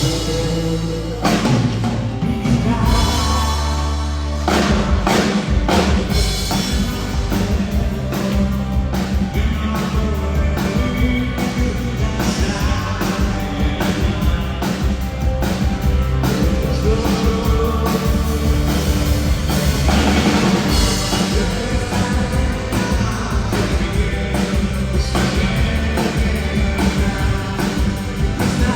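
Rock band playing live: drum kit and bass driving a steady beat through a stretch of the song with no lyrics picked up.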